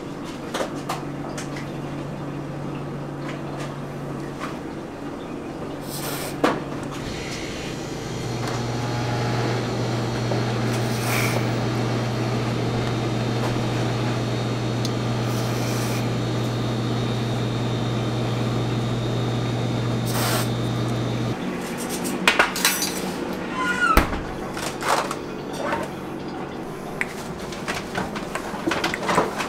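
A steady low mechanical hum that grows louder about a quarter of the way in and drops back about two-thirds in, after which come light clicks, clatter and knocks of a hard plastic chocolate mold being handled.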